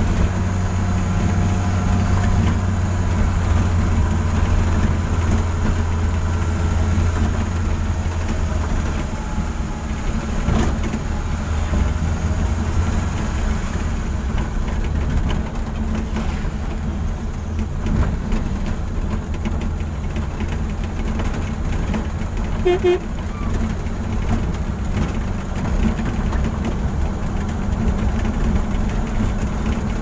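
Car engine and tyre noise heard from inside the cabin while driving, a steady low drone, with one short beep about three-quarters of the way through.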